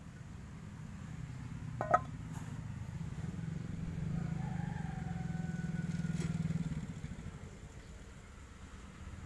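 A motor vehicle's engine going by, growing louder to a peak about six seconds in and then fading away. A single sharp click about two seconds in.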